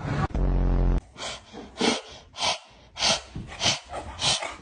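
A short, loud, low buzz, then a steady run of breathy huffs, one about every half second or so.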